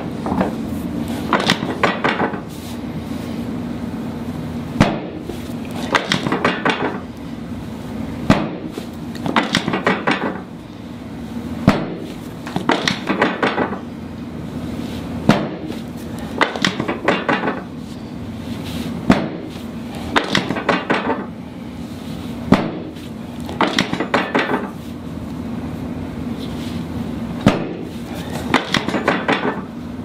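Chiropractic drop table clacking under repeated thrusts on the back: a single sharp clack, then a short quick run of clicks, the pattern repeating about every three to four seconds over a steady low hum.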